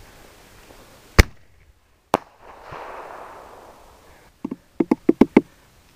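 Consumer artillery shell firing from a mortar tube: a sharp bang about a second in as it launches, a second sharp bang about a second later, then a hiss and a quick run of about eight sharp crackling pops near the end.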